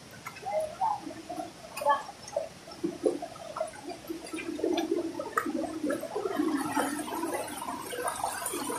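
Small forest stream gurgling and splashing over rocks, growing louder about halfway through, with scattered clicks and rustles from walking through undergrowth.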